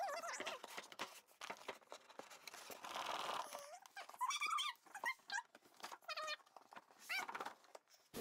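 Faint, short, high whines from a pet, rising and falling in pitch and repeated many times, with light clicks and rustles between them.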